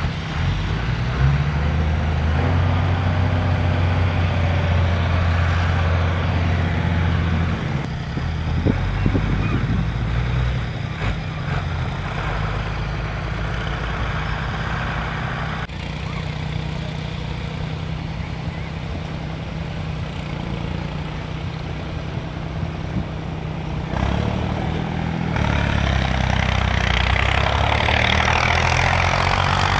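Diesel tractor engines running and idling, a steady low drone that shifts abruptly a few times as the sound changes between takes.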